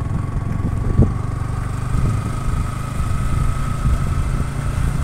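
A motorcycle engine running steadily on the move, a dense low rumble with a faint whine that rises slowly in pitch.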